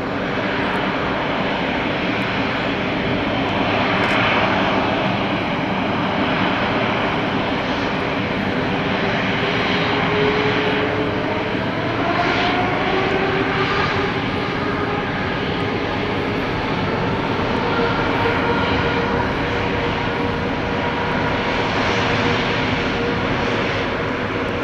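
Airbus A380's four Rolls-Royce Trent 900 turbofans running at taxi power: a steady jet roar with whining tones that drift up in pitch through the middle.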